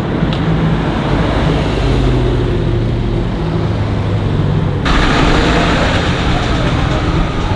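Car engines and street traffic noise, loud and steady, with a low engine note; the sound shifts abruptly to a brighter, noisier mix about five seconds in.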